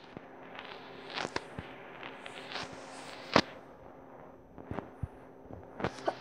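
Handling noise from a handheld camera being moved and bumped against a fabric couch: scattered clicks and soft knocks, the sharpest a single click about three and a half seconds in and a few more near the end.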